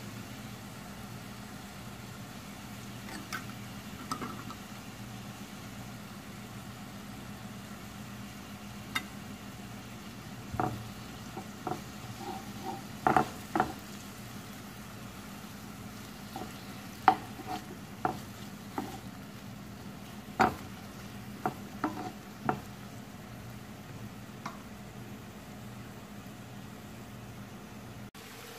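Stir-frying in a nonstick frying pan: vegetables sizzle steadily in oil while a spatula stirs, knocking sharply against the pan a dozen or so times through the middle of the stretch, over a steady low hum.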